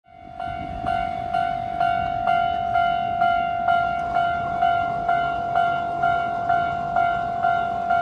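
Japanese railway level crossing warning bell ringing in an even rhythm, about two dings a second. Each ding is one tone that dies away before the next. It fades in from silence at the start and signals that the crossing is closing for a train.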